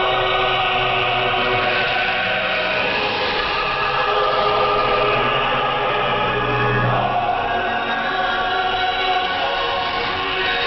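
Choral singing in a music segment of a Voice of Korea broadcast, received on shortwave radio.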